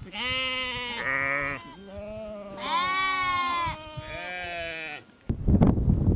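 Sheep and goats of a mixed flock bleating, about five long wavering calls one after another. About five seconds in, the calls stop and wind buffets the microphone, louder than the bleats.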